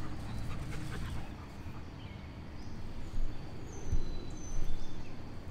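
Outdoor ambience: a steady low rumble of wind and handling noise with a few soft bumps, and several faint, short bird chirps.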